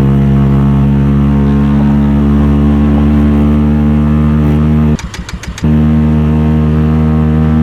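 Motorcycle engine with a loud aftermarket exhaust, running at a steady pitch. About five seconds in it is broken for a moment by a short dip with a few clicks.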